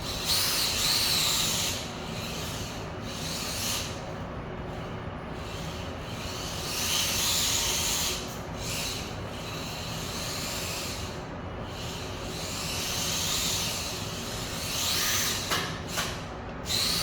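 Small brushed electric motor and drivetrain of a 1/28-scale Wltoys K989 4WD RC car running in repeated surges of a second or two as the throttle is worked, with the tyres rubbing on the floor.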